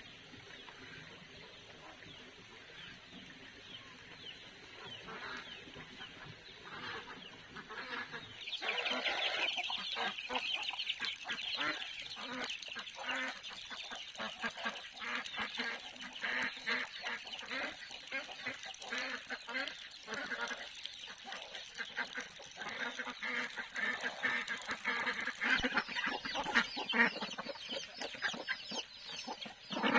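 A flock of farm poultry clucking and calling, with many short calls overlapping. The calling gets louder and busier about eight seconds in.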